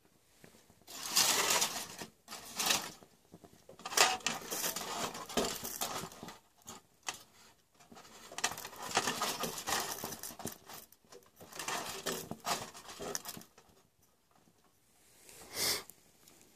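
Aluminium-foil windscreen crinkling and rattling around a small stove, in about five separate bursts of a second or two with quieter gaps between them.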